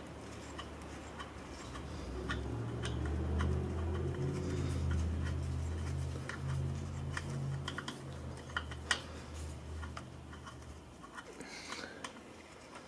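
Light metallic clicks and ticks as the threaded adjusting end of an S&S Quickee adjustable pushrod is spun by hand in its tube against the held jam nut. A low steady hum rises in the background about two seconds in and fades out near the end.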